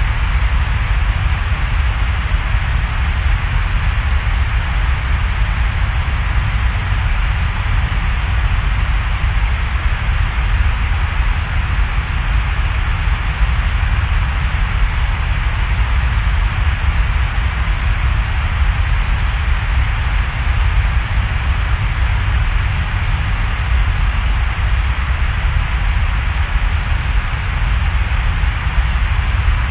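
Steady, even hiss of noise with a deep rumble underneath, unchanging throughout, like a rain or white-noise ambience.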